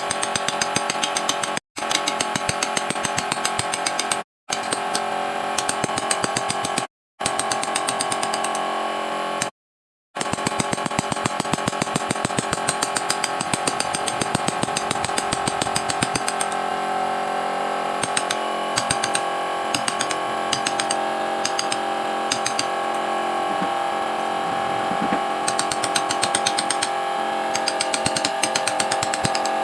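Power tool working wood: a steady whine with fast, regular ticking. It is broken by four brief total dropouts in the first ten seconds, then runs on unbroken.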